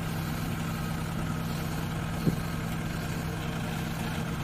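Kubota DC-70 combine harvester's diesel engine running steadily at an idle, with one short knock about two seconds in.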